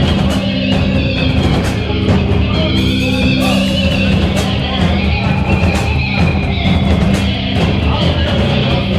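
Live heavy rock band playing loud: distorted electric guitar, bass and drums with frequent cymbal hits, continuous and dense.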